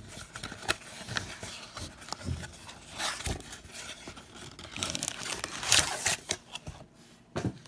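Baseball card packs and their blaster box being handled: irregular crinkling and rustling of foil wrappers and cardboard, with small taps and clicks.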